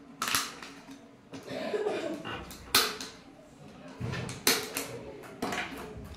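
Several sharp clicks and knocks of a plastic bottle being handled and set down on a wooden table.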